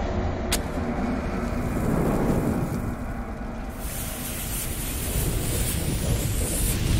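Sound effects of a lit fuse and fire: a sharp click about half a second in, then a steady low rumble with hiss that grows brighter and fuller from about four seconds in.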